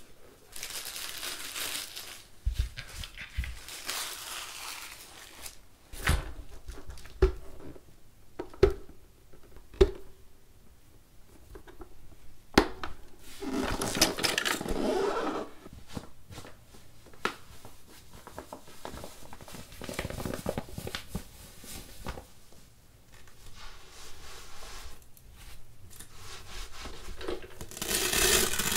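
Plastic parts of a cordless electric spin mop being handled on a table: stretches of scraping and rustling, with several sharp knocks of hard plastic pieces set down or fitted together. Near the end a microfiber pad is pressed and rubbed onto one of the mop's plates.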